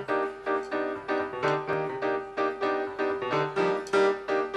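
Live jazz group playing: piano chords struck in a steady pulse about twice a second over an electric bass line.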